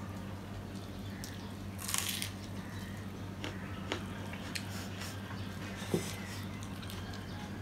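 Eating by hand: fingers working rice against steel plates, with chewing and mouth sounds, scattered small clicks and a brief rustle about two seconds in. A steady low hum runs underneath.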